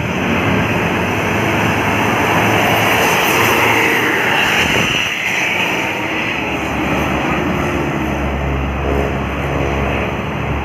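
Heavy road traffic passing close by: engine and tyre noise that swells and then fades around the middle, with an engine's low drone near the start and again near the end. No horn sounds.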